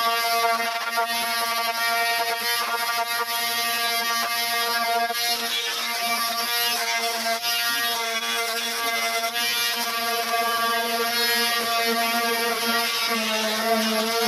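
Handheld angle grinder running steadily and grinding rust off the metal tailgate frame of a 1952 Greyhound bus: an even motor whine at one pitch over a grinding hiss, with no breaks.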